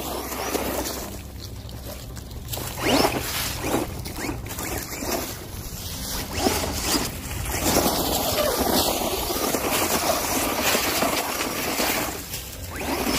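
Redcat Volcano EPX PRO electric RC monster truck driving on a paved lot, its tyres hissing over the surface, with a few knocks and scrapes about three, four and six and a half seconds in, and wind noise on the microphone.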